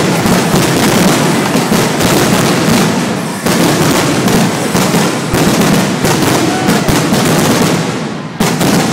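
Aerial fireworks: a rapid, unbroken barrage of shell bursts and reports overlapping one another, with a brief lull near the end before the bangs resume.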